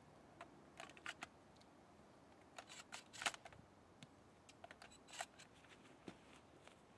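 A shotgun being reloaded by hand with its action open: a scattering of short metallic clicks and clacks as shells go into the receiver and the gun is handled, the loudest about three seconds in.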